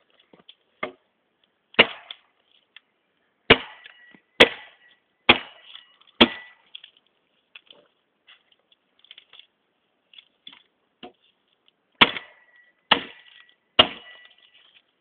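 Tramontina machete chopping into a dead tree: a run of about six sharp blows, roughly one a second, then after a pause of several seconds three more. The blade gives a short ring after some of the blows.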